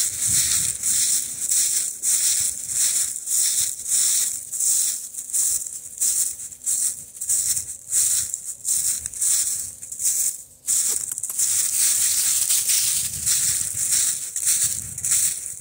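Footsteps crunching through deep dry fallen leaves at a walking pace, about two steps a second, with a brief pause about ten and a half seconds in.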